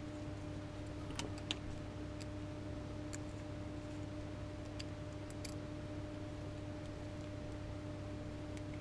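A few faint, scattered small clicks from screws and metal hardware being fitted to a small circuit-board panel by hand, over a steady low hum.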